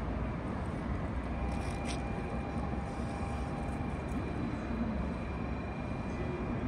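Steady low rumble and hum of an N700 series Shinkansen (N700A-upgraded 'small a' set) standing at the platform with its onboard equipment running. A thin, steady whine comes in about a second in.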